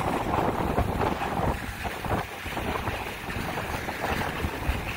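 Wind rushing and buffeting over the microphone while skiing downhill, mixed with the hiss and scrape of skis sliding on groomed snow.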